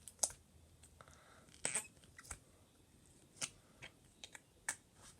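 Homemade light brown slime with small beads being pushed into and worked by hand, giving a string of short, irregular clicks and pops. This is the funny sound the slime makes when a finger is pushed into it.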